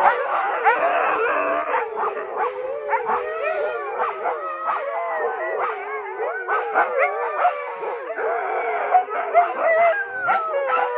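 Several harnessed sled huskies howling and yelping together in a continuous chorus of overlapping, wavering cries.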